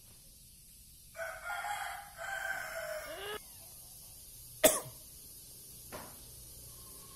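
A rooster crowing: one two-part call lasting about two seconds, ending on a falling note. Past the middle comes a sharp click, the loudest sound, and a fainter click follows about a second later.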